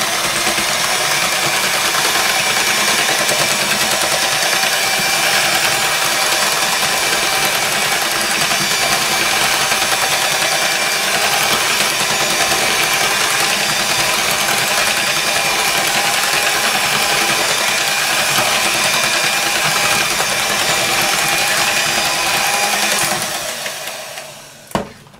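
Electric hand mixer running steadily at a high speed, its twin beaters whirring through cake batter in a bowl. The motor winds down near the end, followed by a click.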